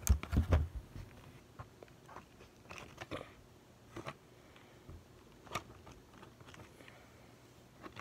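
Hands handling small fishing tackle and bait packages: scattered clicks, taps and light rustles, a cluster of them in the first second and then single ones every second or so.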